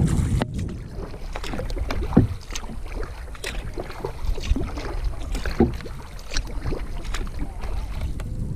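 Kayak paddling on open water: paddle blades dipping and splashing, with water dripping and scattered light knocks, over a low rumble.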